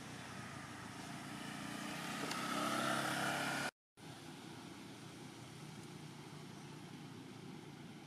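A motor vehicle passes close by, its engine growing louder with a pitch that slides over about three seconds, then cutting off abruptly just before four seconds in. After that a steady low hum of distant engine noise.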